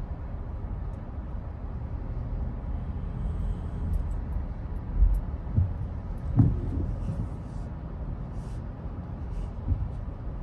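Steady low engine and tyre noise inside a car moving slowly on a wet road. A few soft low thumps come through, and a windshield wiper sweeps across once a little past halfway.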